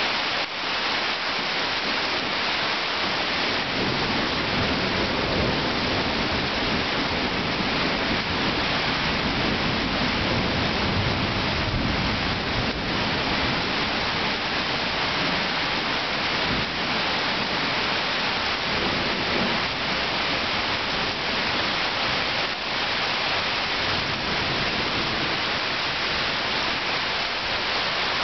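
Steady downpour of rain, with thunder rumbling low beneath it from a few seconds in for several seconds, and a shorter rumble later.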